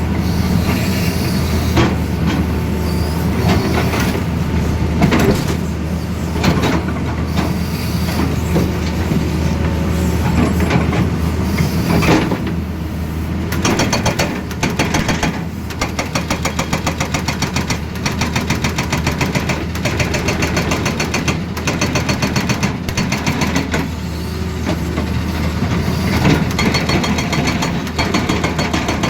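Hitachi Zaxis excavator's diesel engine running under load with scattered knocks. About halfway through, a hydraulic breaker starts hammering in a fast, even rhythm of blows.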